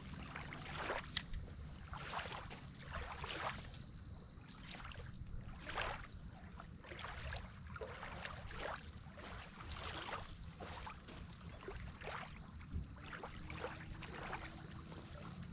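Small waves lapping at a sandy lakeshore in irregular soft splashes, over a low steady rumble of wind.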